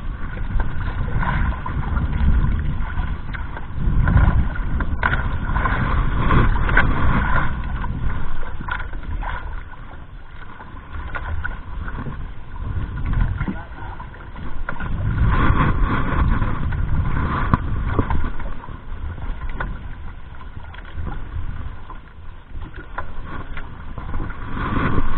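Wind buffeting the camera microphone in uneven gusts, with water sloshing against the hull of a small outrigger boat on choppy sea.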